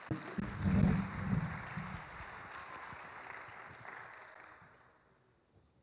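Audience applauding, with low thuds in the first two seconds; the clapping thins and dies away about five seconds in.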